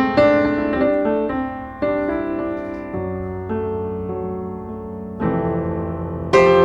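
Background piano music, slow chords and melody notes struck and left to ring.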